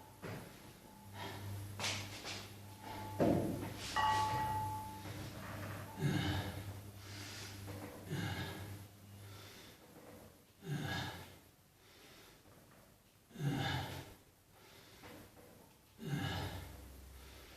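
A person breathing hard under exertion, with sharp, forceful exhalations about every two to three seconds as they work through weight-training reps.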